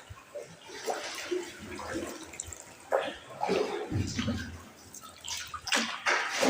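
Canoe paddles dipping and splashing in the water, with drips falling inside a canal tunnel; louder splashes come about three seconds in and again near the end.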